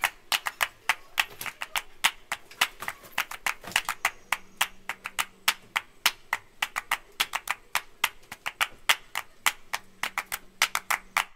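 Rapid, irregular clicks and taps, several a second, with no speech.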